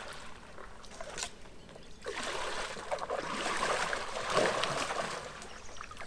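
Water splashing and trickling beside an inflatable kayak, with a click about a second in and the water growing louder from about two seconds in.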